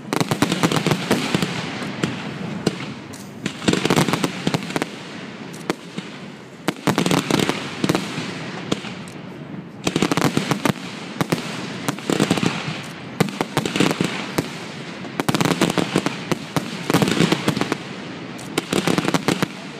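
Fireworks finale: mortar-fired aerial shells bursting in rapid volleys of overlapping bangs and crackle, the barrage swelling in waves a few seconds apart.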